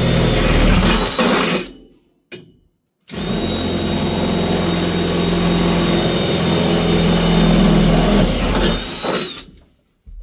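Power drill with a 10 mm bit boring through a car's floor panel, running steadily, stopping and winding down about two seconds in, a brief blip, then running again for about six seconds before winding down near the end.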